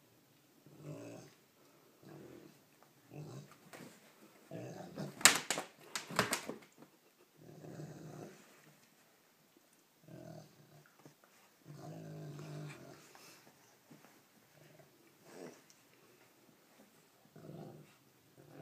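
Rottweiler puppy and German Shepherd play-growling at each other in short growls every second or two while mouthing a toy. A few sharp knocks about five to six seconds in are the loudest sounds.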